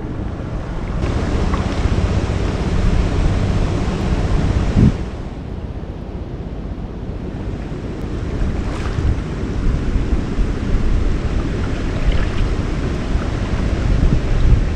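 Steady rush of river water with wind buffeting the microphone, and a brief thump about five seconds in.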